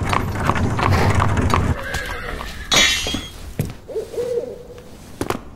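Clattering hooves and a low rumble of wheels over cobblestones, then a horse whinnies briefly about three seconds in. A short wavering hoot follows.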